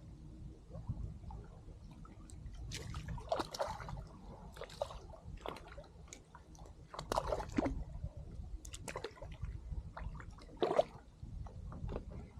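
Water sloshing and splashing around a fishing kayak, a handful of irregular splashes over a steady low rumble, the sharpest about seven and eleven seconds in.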